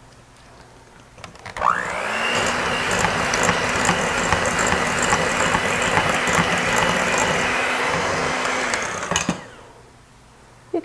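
Electric hand mixer starting up with a short rising whine about a second and a half in, then running steadily as its beaters whip softened cream cheese with sugar and extracts in a ceramic bowl until the filling is combined. It switches off near the end.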